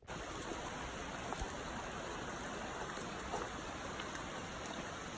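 Steady hiss of rain, with scattered light drop ticks.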